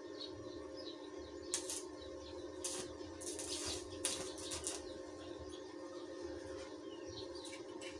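A few light metallic clicks and clinks as steel tubes of a window grill are handled and positioned, over a steady low hum, with faint bird chirps in the background.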